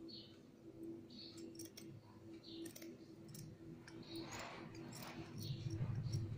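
Scissors cutting through thin net fabric: a run of faint snips with small clicks of the blades closing, and some fabric rustle toward the end.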